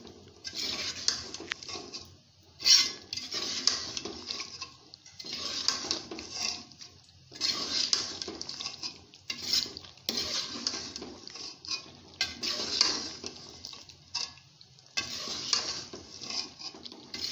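Metal spoon scraping and clinking against a metal pot while stirring a thick mixture of diced potatoes. The stirring comes in runs of one to two seconds with short pauses between them.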